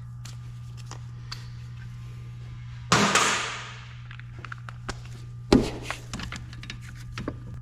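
Clanks and clicks of tools against metal: a loud clatter about three seconds in that dies away over a second, and a sharp knock about five and a half seconds in, over a steady low hum.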